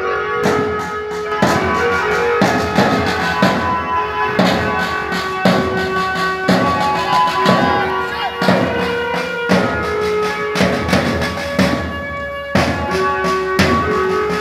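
Drums, a side drum and bass drum, beating a steady rhythm with held melody notes over it: band music for a procession.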